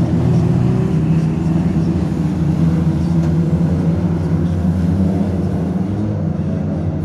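Engines of a pack of oval-racing saloon cars running hard together as they race around the track, loud and steady with small rises and falls in pitch as cars pass.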